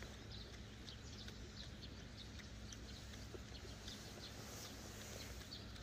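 Quiet outdoor ambience: scattered brief, high bird chirps over a low steady background hum.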